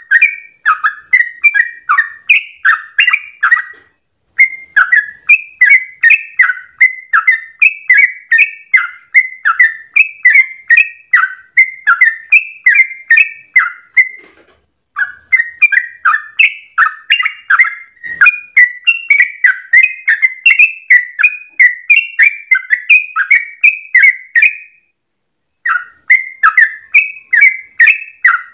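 Yellow-vented bulbul singing a fast, continuous run of bubbly chattering notes, the rapid 'ropel' song. It breaks off briefly three times, about 4, 14 and 25 seconds in.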